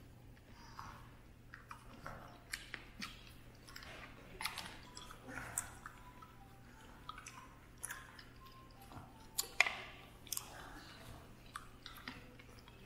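A person chewing a yellow cherry close to the microphone: soft wet mouth sounds with scattered small clicks and smacks, one sharper click about nine and a half seconds in.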